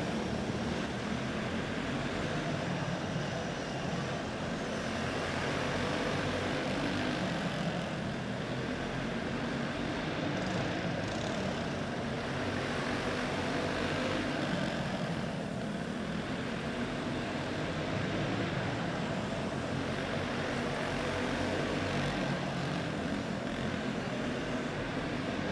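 A pack of quarter midget race cars with single-cylinder four-stroke clone engines running at speed around a dirt oval: a steady engine drone that swells and dips a little as the cars come around.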